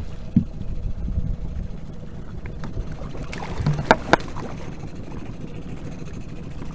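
Steady low rumble of the boat's outboard motor running at trolling speed, with two sharp knocks about four seconds in as the landing net holding the trout is brought aboard against the boat.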